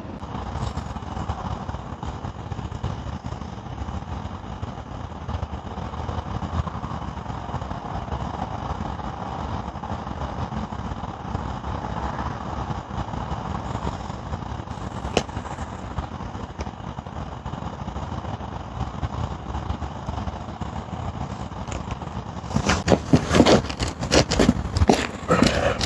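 Steady low outdoor rumble. About 22 seconds in it gives way to a quick run of loud scuffs and knocks of a body and hands scraping onto pavement.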